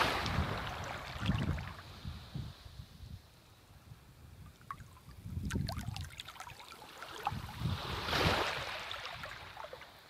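Shallow sea water lapping and washing over sand at the shoreline, with small trickling and gurgling sounds. A wash of water swells at the start and again about eight seconds in.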